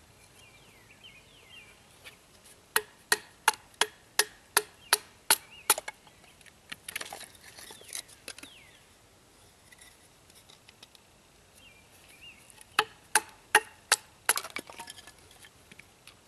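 Sharp, rhythmic knocks of a Habilis Bush Tools Trapper knife splitting wood into smaller pieces: a quick run of about nine strikes, a crackle of wood, then five more strikes. Birds chirp faintly in the background.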